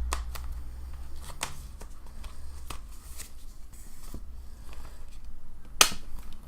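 Rustling and light clicking of a Blu-ray case and its paper inserts being handled, over a steady low hum, with one sharp, loud click near the end.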